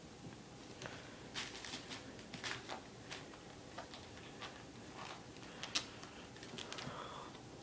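Scattered light clicks and taps of six-week-old kittens' claws and paws on a tile floor as they scamper and wrestle, the sharpest click a little under three-quarters of the way through.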